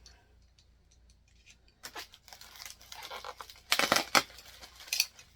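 Small cardboard blind-box packaging being torn open by hand: faint handling clicks, then a run of ripping and crinkling strokes from about two seconds in, the loudest near the end.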